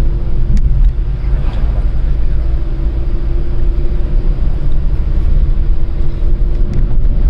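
Steady low rumble of a moving road vehicle with a faint, even hum above it.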